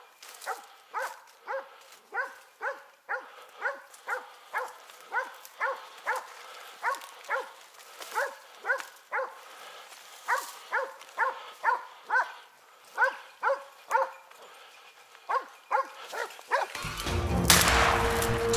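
A hunting dog barking steadily, about two barks a second, on a wild boar hunt. Near the end, music comes in with a loud blast of a shotgun being fired.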